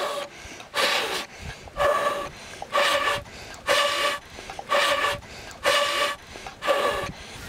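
A boy blowing hard onto glowing embers in a wood-fired hearth to rekindle the fire: eight strong puffs of breath, about one a second.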